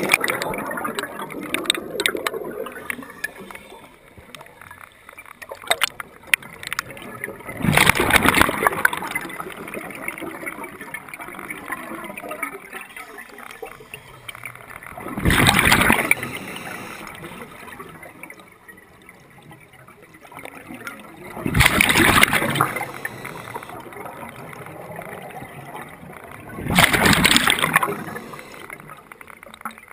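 Scuba diver breathing underwater through a regulator: a loud rush of exhaled bubbles comes four times, about every six to seven seconds, with a quieter hiss between breaths.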